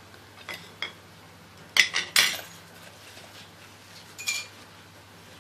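A spoon and bowls knocking and clinking on a kitchen counter as breadcrumbs are tipped into a glass bowl: a few sharp knocks, a loud cluster about two seconds in, and one ringing clink a little after four seconds.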